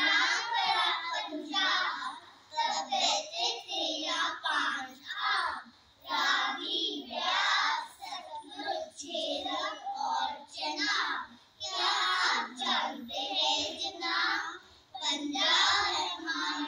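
A group of young children singing together in chorus in Hindi, line by line with short pauses between phrases.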